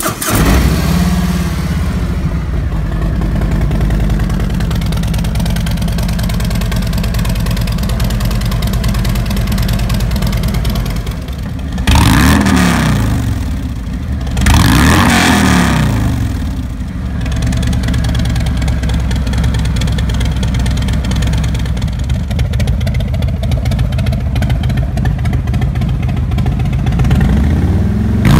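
2017 Harley-Davidson Street Glide's Milwaukee-Eight V-twin running through a prototype set of SVT Boneshakers exhausts, idling right after start-up. The throttle is blipped twice in quick succession about halfway through, each rev rising and falling back to idle, and once more at the very end.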